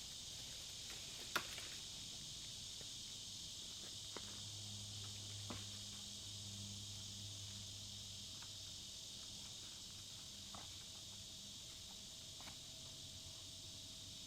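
Steady high-pitched chorus of insects, with a few scattered sharp clicks of steps or snapping twigs, the loudest about a second in.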